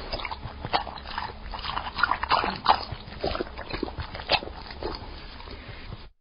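Dog lapping water from a bowl: a quick, uneven run of wet slurping clicks and splashes that cuts off abruptly near the end.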